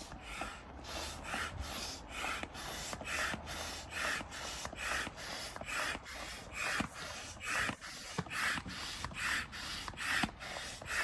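Hand air pump inflating an inflatable kayak's air chamber: a steady rhythm of airy, rasping strokes, a little more than one a second.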